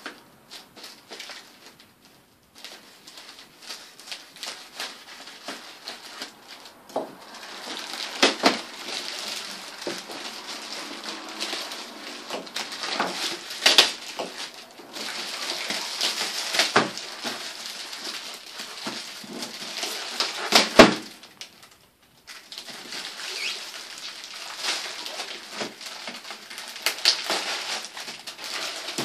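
Black plastic bag and plastic film being cut and pulled off a box by hand, crinkling and rustling, with several sharp cracks as the plastic tears.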